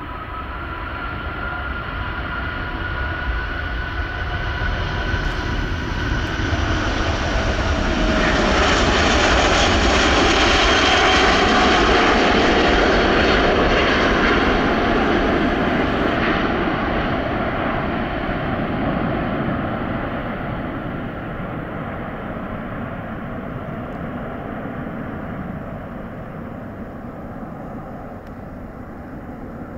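Airbus A380-861 with four Engine Alliance GP7200 turbofans at takeoff thrust through the takeoff roll, lift-off and climb-out: dense jet noise with a steady whine. It swells to its loudest about ten to thirteen seconds in as the aircraft passes, one whining tone dropping in pitch, then fades as it climbs away.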